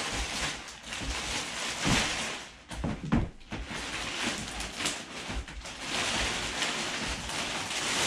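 Clear plastic protective wrap rustling and crinkling as it is pulled off a new mountain bike frame, with a few short knocks.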